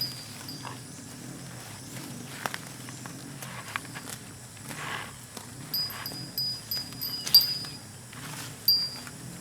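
Village ambience: a bird chirping in short high notes, many of them in the second half, over scattered sharp clicks and knocks, one loud knock about three quarters of the way through, and a low wavering hum.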